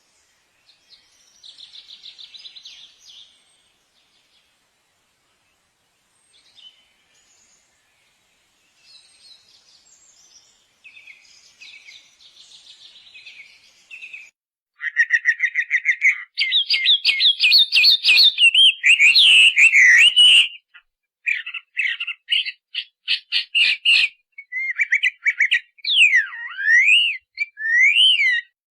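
A small bird calling and singing: faint twittering in the first half, then, about halfway through, loud rapid chattering and trills mixed with whistled notes that glide up and down.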